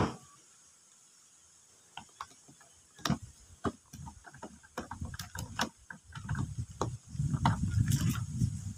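A single sharp click at the very start, then from about three seconds in a screwdriver working the gear-housing screws of a Makita 9527NB angle grinder: irregular metal clicks and scrapes, with a low rubbing rumble of hands on the housing that grows thicker near the end.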